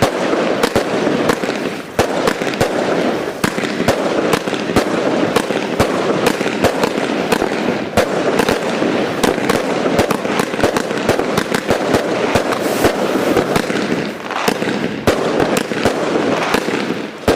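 Firecrackers going off in a rapid, continuous string of sharp cracks and pops.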